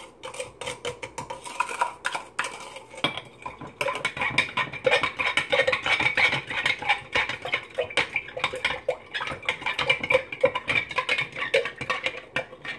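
A spoon stirring sugar into liquid in a glass mason jar, clinking rapidly against the glass, with the stirring getting louder and busier after about four seconds.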